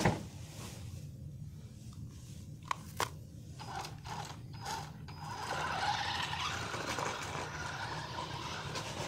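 Toy RC stunt car with electric drive motors on stone paving. There are a few sharp clicks near the start and about three seconds in. From about five seconds in, its motors and wheels make a steady hiss as it drives off.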